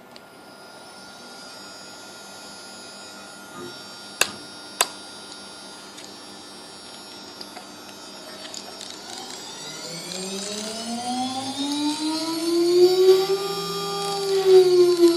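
CNC machine's motors whining: a steady electrical hum with two sharp clicks, then from about two-thirds of the way in a pitched whine that rises, holds briefly and falls again as the machine speeds up and slows down.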